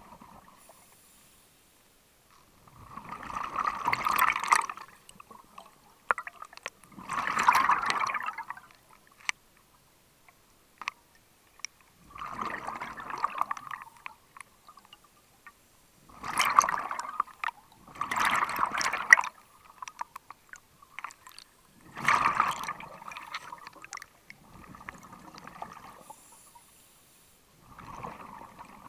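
Scuba diver breathing underwater: exhaled air bubbling out of the regulator in bursts of a second or two every few seconds, with quiet pauses between breaths.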